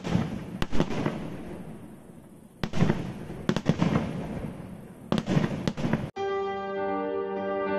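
Aerial fireworks shells bursting overhead: several sharp bangs, roughly every one to two seconds, each followed by a spray of fine pops fading away. About six seconds in the sound cuts off abruptly and slow instrumental music takes over.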